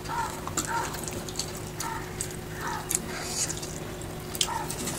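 Wet eating sounds: chewing and lip smacks, with soft squishes and small clicks as fingers work through a curried fish head and rice. The sounds come in short, irregular bursts.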